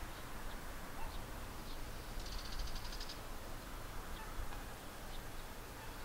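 Male bull-headed shrike giving a rapid chattering rattle of about a dozen high notes, lasting under a second, about two seconds in, with a few faint short call notes around it: a territorial calling exchange between males.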